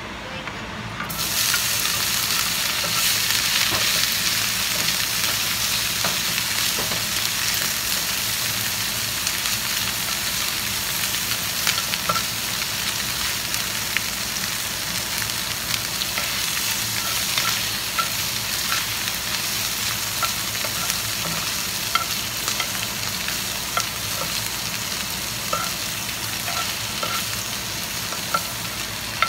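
Smoked fish (tinapa) pieces frying in hot oil in a nonstick pan. The sizzle jumps up sharply about a second in as the fish goes in, then holds steady. Scattered clicks and scrapes come from tongs and a spatula turning the fish against the pan.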